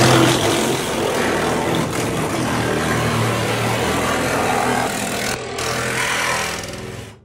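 Cordless reciprocating saw (Sawzall) running hard with its blade cutting through an aircraft's aluminium skin panel. The noise is continuous, with a brief break about five and a half seconds in, and it stops just before the end.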